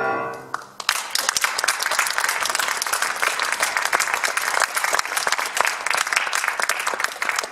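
A piano's final chord dies away, then a concert audience breaks into applause about a second in, dense and steady.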